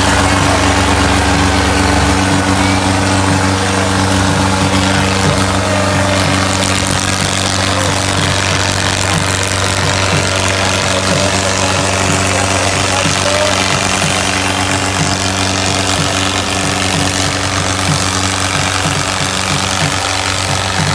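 Two HMT diesel tractors pulling against each other in a tug-of-war, their engines running loud and steady at high revs under full load, with a rapid, irregular knocking clatter through the drone.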